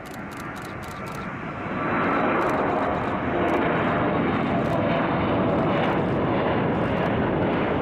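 Airplane engine noise, growing louder about two seconds in and then holding steady.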